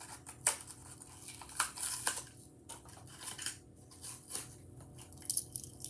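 A toy car's plastic blister pack and cardboard backing being pried and torn open by hand: irregular crinkles, crackles and clicks of plastic.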